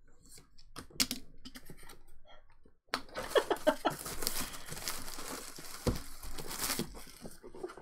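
A utility knife slitting the plastic shrink wrap on a trading-card box, a few light clicks and scratches. From about three seconds in, the wrap is torn and crinkled off by hand in a dense crackle that stops just before the end.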